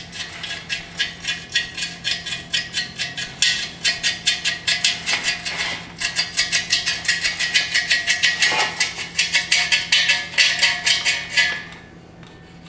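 Magnetic pickup tool swept back and forth inside a drilled steel square tube, rattling and scraping loose steel drill shavings along the inside of the tube in quick strokes, about four a second. The rattling stops about a second before the end.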